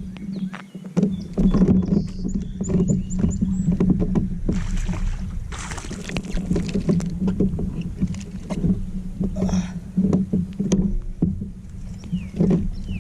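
Knocks and clatter from handling gear aboard a plastic pedal kayak, with water splashing twice near the middle and a steady low hum throughout. A bird chirps a quick run of high notes about two seconds in.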